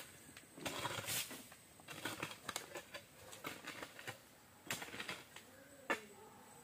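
Shovel digging into damp earth: irregular scrapes and crunches as the blade is driven in and soil is lifted, with one sharp knock near the end.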